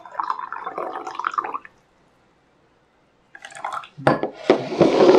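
Tea pouring from a small ceramic teapot into a cup for about a second and a half. After a pause, a few knocks and a clatter near the end as the teapot is set down on the table.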